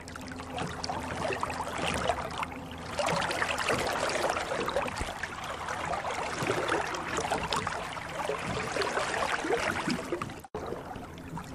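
Water trickling and bubbling in a hydroponic system, over a steady low hum. There is a brief dropout near the end, after which the sound carries on more quietly.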